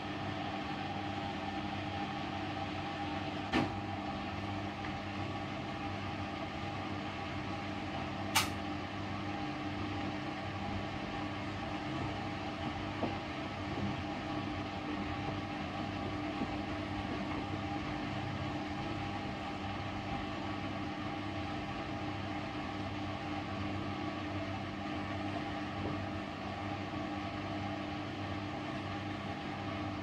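Hoover DXOA69HC3B washing machine running steadily partway through its Bathrobe cycle, a constant motor hum with a fast low pulsing. Two sharp clicks cut through it, about four seconds in and about eight seconds in.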